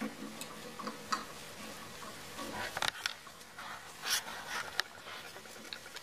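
A pair of eclectus parrots in courtship, the male putting his beak to the female's face: soft beak clicks and quiet, gurgling vocal sounds, with a short louder flurry a little before halfway and another about two-thirds through.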